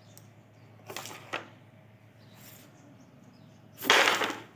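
A carrom striker is flicked across a wooden carrom board and gives two sharp clacks about a second in as it strikes the carrom men. Near the end comes a loud, short burst of noise.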